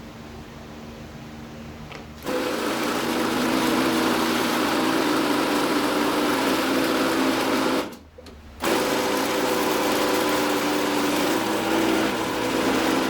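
A workshop power tool running steadily and working material, with a constant hum and hiss. It starts about two seconds in after a faint hum, cuts out for under a second around the eight-second mark, then runs on again.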